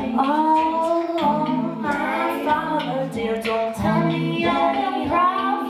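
Live-looped a cappella performance by a female vocalist: several layers of sustained, wordless sung harmony sounding together over beatboxed percussive clicks.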